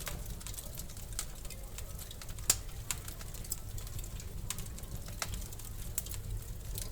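Wood fire crackling in a fireplace: irregular snaps and pops over a low steady rumble, with one sharper pop about two and a half seconds in.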